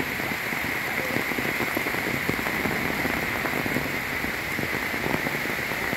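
Heavy rain falling steadily on leaves and ground: an even hiss filled with countless small drop ticks.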